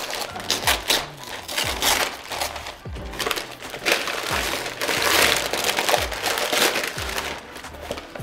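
Brown kraft packing paper crinkling and tearing as it is ripped and pulled off a cardboard box, in irregular crackling rustles. Background music with a steady low beat plays underneath.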